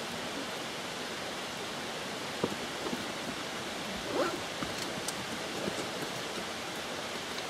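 Steady, even rushing hiss of outdoor ambience, with a few faint light knocks about two and four seconds in.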